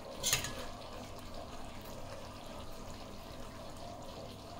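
Steady watery hiss and bubbling of a cornstarch-thickened chilli paneer gravy simmering in a pan on a gas stove. A short sharp clatter comes just after the start.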